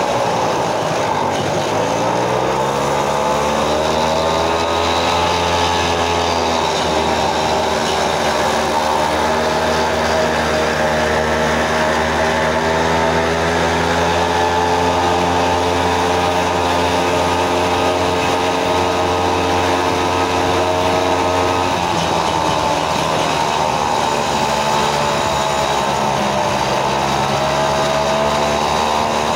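Small moped engine of a motorized tricycle running under way. Its pitch dips, then climbs as it revs up in the first few seconds, holds steady for a long stretch, drops about two-thirds through, and rises again near the end.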